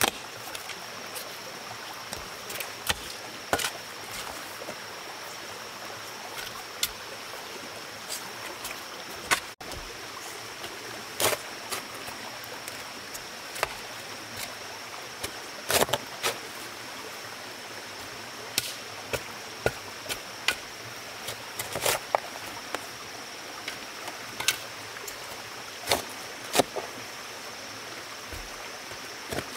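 Scattered sharp knocks and taps, one every second or few seconds, over a steady rushing sound like running water and a thin, steady high-pitched hum.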